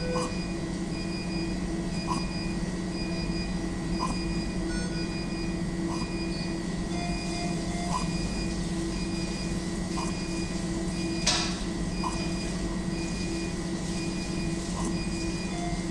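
A newborn's gasping breaths, short and regular about every two seconds, over the steady hum and on-off beeping tones of neonatal ventilator and monitor equipment. Gasping respiration like this is the sign of severe birth asphyxia (hypoxic ischemic encephalopathy). One sharper, louder noise comes about two-thirds of the way through.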